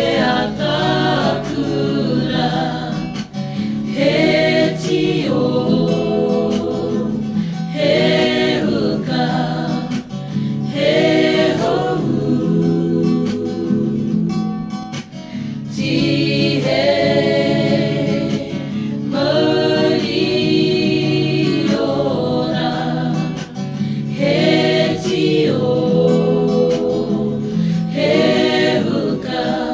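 Background music: a choir singing with guitar accompaniment, in sung phrases of held notes a few seconds long.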